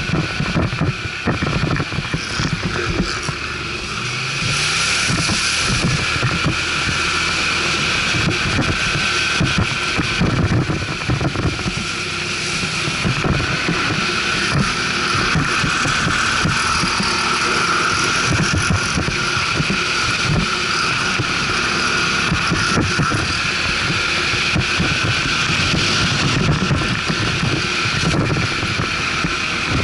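ATV engine running under way, with wind buffeting the microphone.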